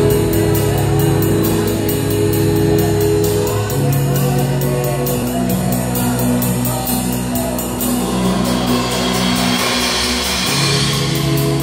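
Live band music: a drum kit played with sticks, with evenly repeated cymbal strokes over bass guitar and guitars holding low sustained notes. About eight seconds in, a cymbal wash swells for a few seconds.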